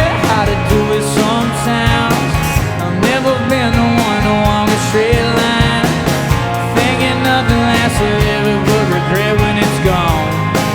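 Live rock band playing a song with a steady beat, bass, and a melody line that slides between notes.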